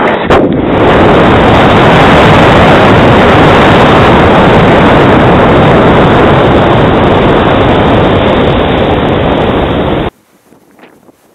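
Loud, steady rush of wind over the onboard camera microphone of a gliding RC plane, its propeller only windmilling. It cuts off abruptly about ten seconds in, leaving faint outdoor quiet.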